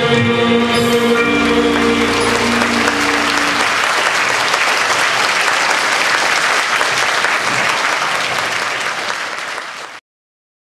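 A group song with accompaniment ends on a held chord. The crowd then applauds, and the applause slowly fades before cutting off suddenly near the end.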